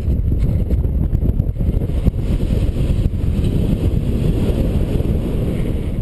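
Airflow buffeting a helmet-mounted action camera's microphone in paraglider flight: a steady, loud low rumble of wind noise.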